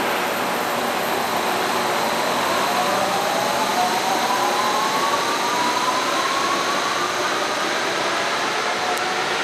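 Pink Line monorail train running, its electric drive giving a whine that rises steadily in pitch from about two seconds in as the train gathers speed, over a steady rushing noise.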